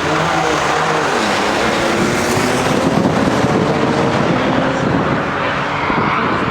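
Cars' engines running hard under full-throttle acceleration on a drag strip, their pitch climbing steadily.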